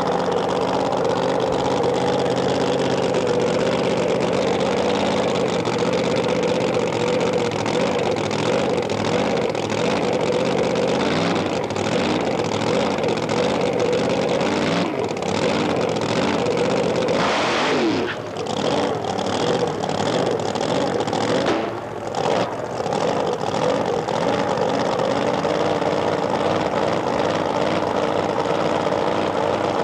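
Supercharged fuel funny car drag-racing engine running loudly at idle. Its pitch sweeps down about seventeen seconds in, and the level dips briefly a couple of times after that.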